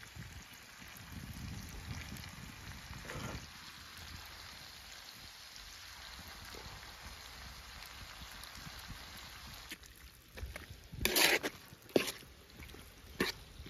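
Chicken pieces and vegetables in oil sizzling in a large steel pan over a wood fire, a steady low hiss. Near the end come a few loud, sharp knocks.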